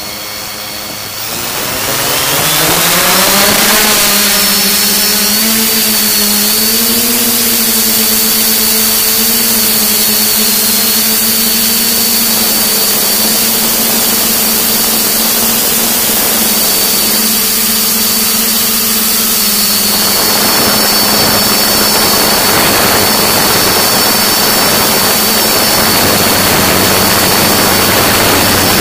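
The brushless motors and propellers of a DJI S550 hexacopter spinning up for takeoff, heard close up from the camera on its frame. A whine rises over the first few seconds, then holds steady with small pitch wobbles over a loud rush of prop wash as it climbs.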